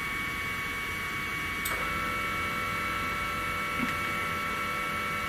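3018 CNC router's Z-axis stepper motor jogging the spindle carriage slowly upward. A steady whine starts with a click about a second and a half in and runs on past the end, over a constant background hum.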